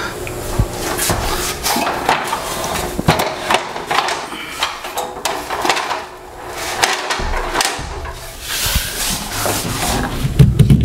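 Clanks and rattles of an aluminium multi-position ladder being moved and folded, then a large half-inch MDF sheet scraping and knocking against the wall and a wooden ledger board as it is handled. A few heavy thumps near the end.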